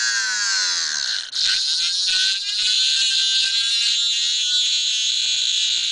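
High-pitched whine of a Rodin-coil DC pulse motor spinning a half-inch neodymium magnet ball in an oiled plastic cup at high speed. The pitch sags through the first second and dips briefly, then climbs back and holds steady.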